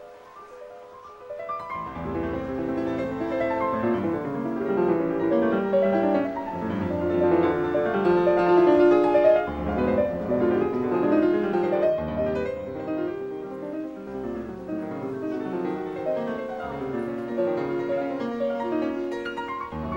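Background piano music, soft at first and fuller from about two seconds in.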